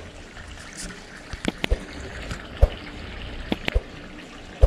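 Water pouring steadily from a pipe and splashing into a fish pond, with several sharp clicks and knocks over it.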